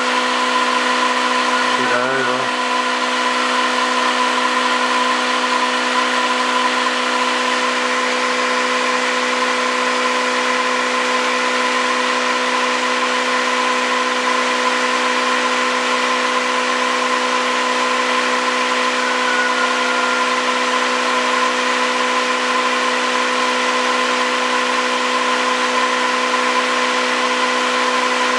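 A homemade angle-magnet pulse motor, a Bedini SG-style magnet rotor driven by pulsed coils, running at steady speed with a constant whine. A short wavering chirp comes about two seconds in.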